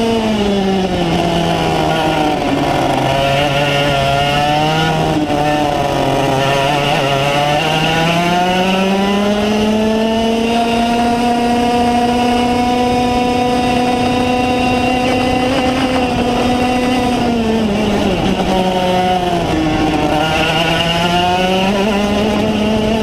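Racing kart engine running flat out. The pitch drops about a second in and stays low for several seconds, climbs back around eight to ten seconds in, holds high, dips again near eighteen seconds and climbs once more near the end.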